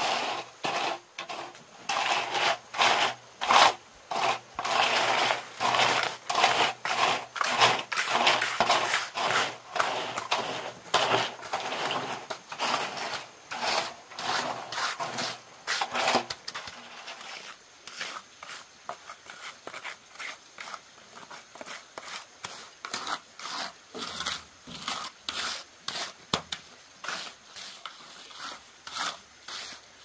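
Hand work making a steady run of short scraping strokes, one after another. The strokes are louder for the first half and turn quieter after about sixteen seconds.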